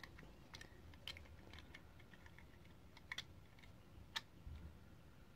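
Near silence with a few faint, irregular light clicks and taps from fingers handling a small diecast metal model car.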